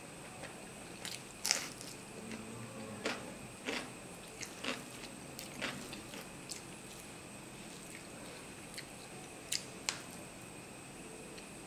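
Close-miked eating of mutton curry and rice: wet chewing, lip smacks and sharp mouth clicks, coming thickly in the first six seconds and as a pair near the end.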